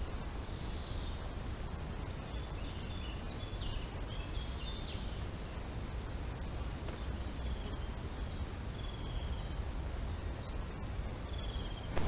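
Small birds chirping in short high notes, with a few brief trills later on, over a steady hiss and low rumble of forest wind.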